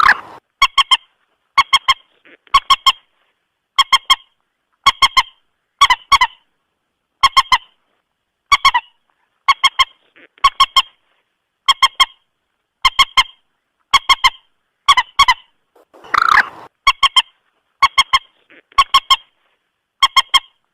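Common moorhen (mandar batu) lure call: short honking notes in groups of two or three, repeating steadily about once a second, each note starting with a sharp click. A rougher, noisier call cuts in once, about three-quarters of the way through.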